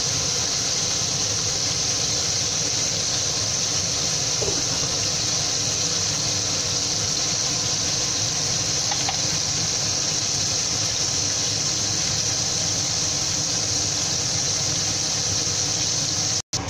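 Chicken pieces and sliced onions frying in hot oil, a steady high sizzling hiss.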